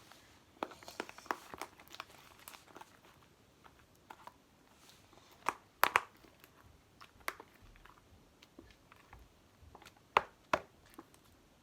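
A large batch of thick slime being kneaded and pulled by hand, giving irregular sticky clicks and crackling pops, with a few louder sharp pops midway and near the end. The slime has gone stiff and heavy from the contact lens solution mixed into it.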